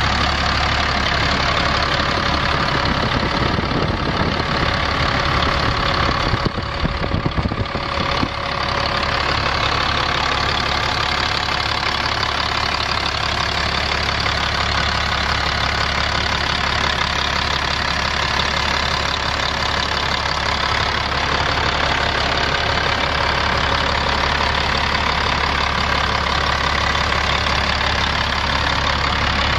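Caterpillar C10 six-cylinder diesel of a Peterbilt 357 truck idling steadily, with a short stretch of uneven low rumbling about six seconds in.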